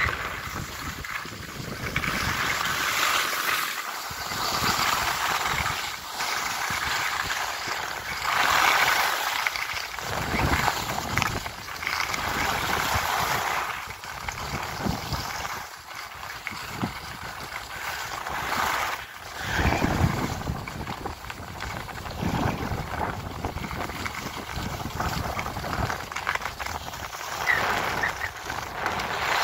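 Hiss and scrape of edges sliding over hard-packed groomed snow, swelling and fading every few seconds with the turns, with wind rumbling on the microphone.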